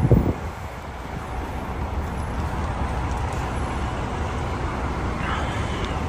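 Road traffic with a steady low engine rumble from the tour bus, a short thump right at the start, and a faint squeal that rises and falls about five seconds in.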